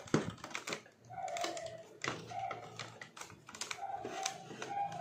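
Plastic parts of an opened blender housing clicking and rattling as they are handled, in irregular sharp clicks. Several short steady tones sound in the background from about a second in.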